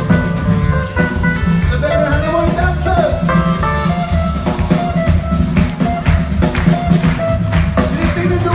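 Live band playing a samba: acoustic guitars, drum kit and upright bass keep a steady beat under a melody line.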